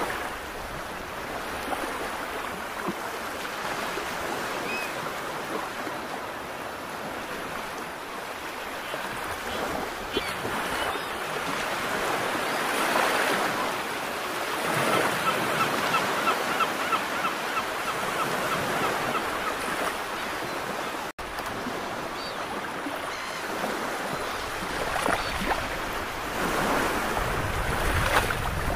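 Sea water washing and surging against a rocky shore, with wind rumbling on the microphone; the wash swells and eases. The sound drops out for an instant about three-quarters of the way through.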